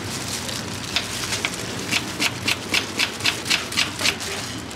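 Kitchen knife chopping slices off an unripe green banana onto a wooden cutting board: a couple of single chops, then from about two seconds in a quick even run of about three to four chops a second.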